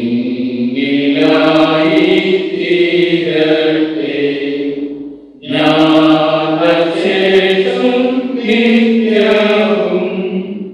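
Liturgical chanting sung to a slow melody: two long phrases of held, sustained notes with a short break for breath about halfway through.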